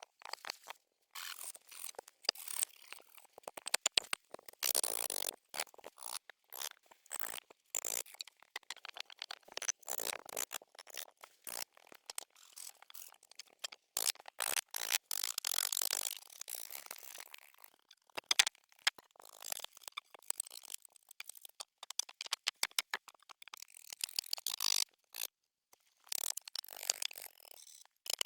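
Irregular scraping and crunching with many quick clicks and cracks in uneven stretches, from hand work on earth and branches while building a dugout shelter.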